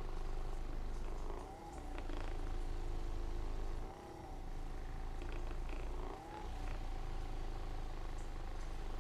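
A steady, low, motor-like hum that eases off briefly about every two seconds.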